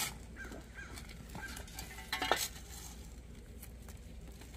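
A hand digging tool working dry soil in a trench: faint scraping, with one sharp strike a little over two seconds in.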